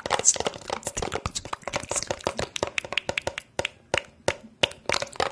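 Rapid, irregular tapping and clicking close to a microphone, many sharp strokes a second, with a few short hissy bursts, the first near the start and another about two seconds in. The clicking thins out for about a second past the middle.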